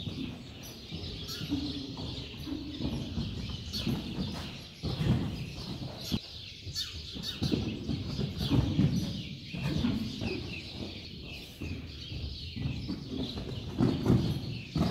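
A horse cantering loose on the sand floor of an indoor arena: dull, muffled hoofbeats recurring about once a second, with occasional sharper clicks.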